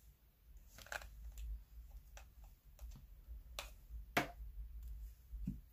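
Scattered small clicks and taps of makeup items being handled and set down, about eight in all, the sharpest one after about four seconds and a dull low knock near the end.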